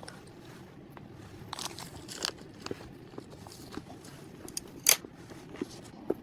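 Eating sounds at a meal: chewing, with scattered sharp clicks of utensils against dishes, the loudest one about five seconds in.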